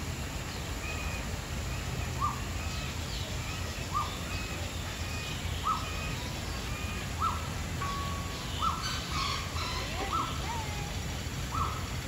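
A bird repeating a short, clipped call about every second and a half. Fainter, higher chirps from other birds and a steady low background rush sit underneath.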